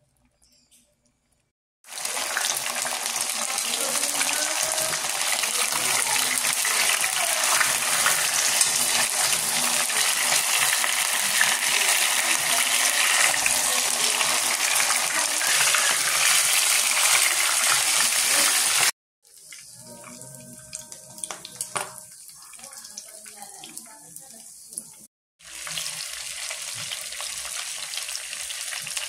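Hot oil sizzling as butterflied milkfish (bangus) fries in a pan. A loud, steady sizzle starts suddenly after a couple of seconds of near silence and breaks off abruptly about two-thirds through. It returns much quieter for a few seconds, then comes back loud near the end.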